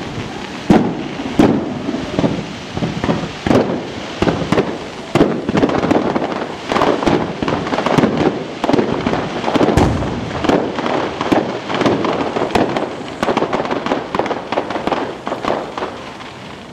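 A fireworks display: aerial shells bursting in rapid succession, a dense run of bangs and crackles several times a second. The bangs thin out near the end.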